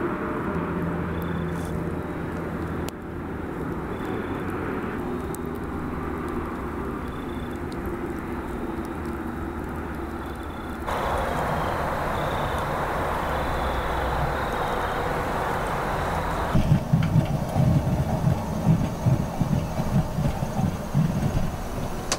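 A steady low hum with a faint high chirp repeating every second or two and a few soft crackles from a wood campfire's embers. Late on, a stovetop coffee percolator perks, with uneven low bubbling pulses, the loudest sound here.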